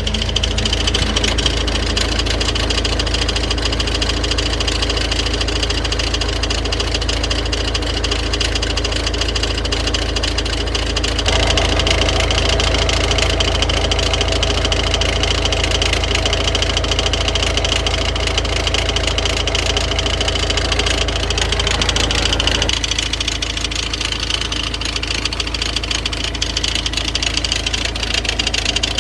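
Car engine running loudly with a fast rattle from a crankshaft pulley whose vibration damper is damaged. This noise is typical of the pulley's two parts striking each other, and it makes the belt tensioner move excessively. The tone of the noise shifts about a third of the way in and again near the end.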